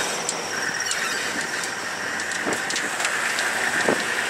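Open safari vehicle driving over a rough dirt track: steady road noise with the body and frame rattling in scattered clicks and knocks.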